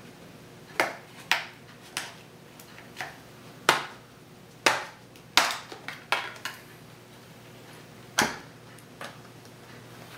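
Plastic retaining clips of an Asus Eee Slate tablet's back panel snapping loose one after another as the case seam is pried open: about a dozen sharp snaps, unevenly spaced, most in the first seven seconds.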